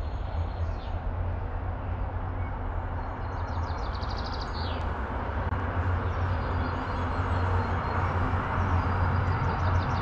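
Steady outdoor noise, a low rumble with a hiss over it, with short high bird trills on top a few times, around four seconds in and near the end.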